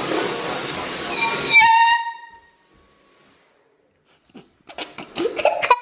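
Handheld canned air horn: a loud rushing hiss, then about a second and a half in a short, loud blast of one steady blaring tone that dies away within a second. Near the end come a few knocks and a voice.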